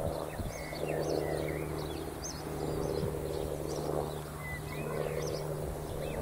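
Small birds chirping and singing in many short, quick notes that rise and fall, over a steady low hum.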